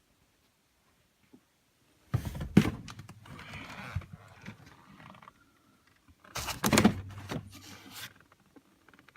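Two bouts of plastic scraping and knocking as car interior parts are moved and handled, each about two seconds long, the first starting about two seconds in and the second about six seconds in.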